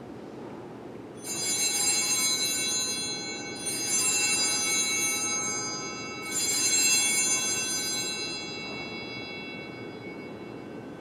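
Altar bells (Sanctus bells) rung three times, about two and a half seconds apart, each ring a bright cluster of high tones left to fade. They mark the elevation at the consecration of the Mass.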